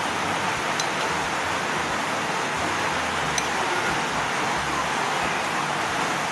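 Steady, even fan-like hiss of background noise, with a couple of faint light ticks.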